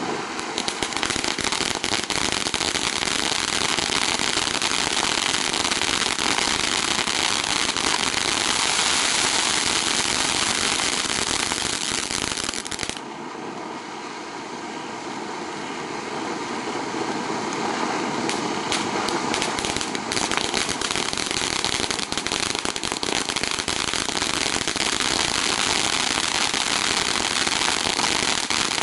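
Pyrotrade PGE406-2 Mega-Fan fountain-battery firework burning, a loud rushing hiss of spraying sparks laced with dense crackling. About 13 seconds in it drops quieter for several seconds, then builds back up to full strength.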